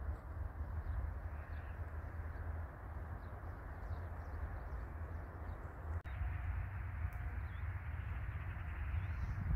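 Steady wind rumbling on the microphone over an outdoor hiss, with faint, scattered bird chirps above it; the sound breaks off for an instant about six seconds in.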